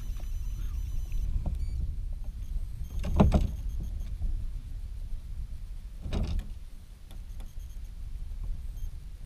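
Steady low rumble of wind on the microphone, with two short knocks, the louder one about three seconds in and a second about six seconds in.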